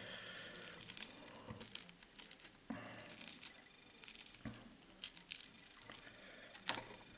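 Faint crinkling and rustling of a thin plastic strip being folded back over a stonefly fly held in a vise, with scattered light clicks.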